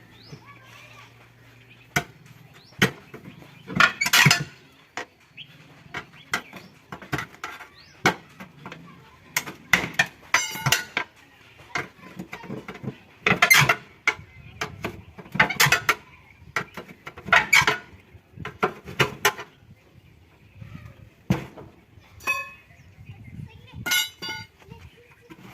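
Irregular sharp metal clinks and knocks, some of them ringing, from hand tools being handled and struck during tractor tyre puncture repair work.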